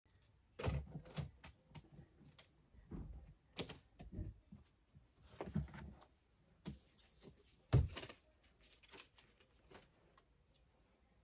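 Household objects being picked up, moved and set down on a dresser top while tidying a room: a scattered run of knocks, thuds and light clatter, the loudest thud about eight seconds in.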